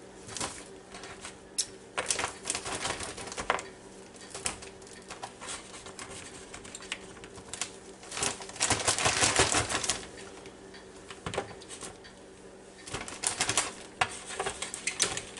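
Plastic bag crinkling and rustling as slices of zucchini and yellow squash are dropped in by hand with breading mix, in many short crackles. A longer, louder stretch of rustling comes a little past the middle.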